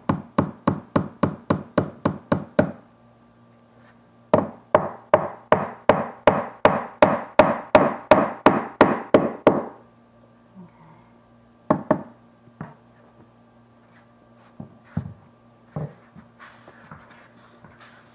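Claw hammer tapping small nails into vinyl-floor quarter-round trim with quick, light strikes, about four a second. Two runs of strikes, the second beginning about four seconds in and stopping near ten seconds, then a few scattered single knocks.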